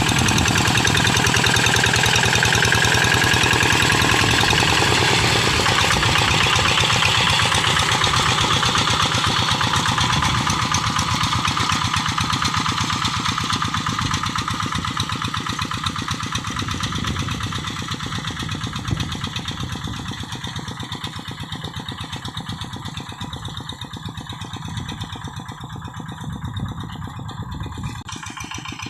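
Single-cylinder Kubota diesel engine of a Quick G1000 hand tractor running steadily under load while working a rice paddy, with a rapid, even firing beat. It grows gradually fainter and duller through the second half.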